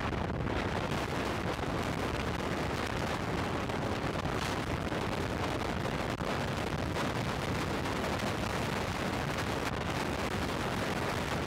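Steady wind roar and buffeting on a motorcycle-mounted action camera's microphone while riding a Royal Enfield Thunderbird 500 at highway speed.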